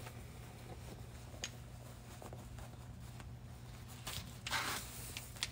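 Quiet workshop room tone: a low steady hum, one small click about a second and a half in, and a brief rustle of clothing about four seconds in.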